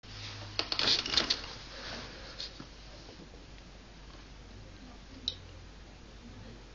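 A kitten batting a small ball across a carpet: a quick cluster of light clicks and taps about a second in, another tap a little later, and one sharp click about five seconds in.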